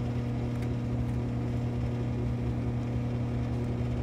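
A steady machine hum with a constant low drone and a few higher tones above it, unchanging throughout.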